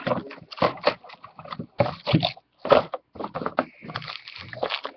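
Foil wrappers of trading-card packs crinkling and rustling in irregular bursts as the packs are handled.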